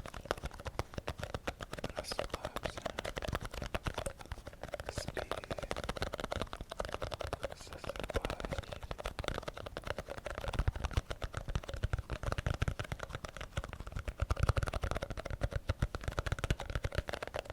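Fast, continuous tapping on an object, many small taps a second, as an ASMR tapping trigger.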